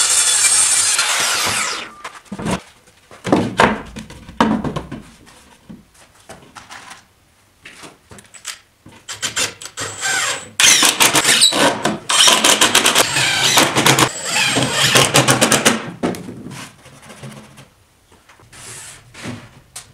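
A circular saw finishing a cut through an OSB sheet and then cutting off at about two seconds, followed by knocks as the board is handled. From about ten seconds in, a cordless drill runs in several bursts against the OSB panel over about six seconds, with one shorter burst near the end.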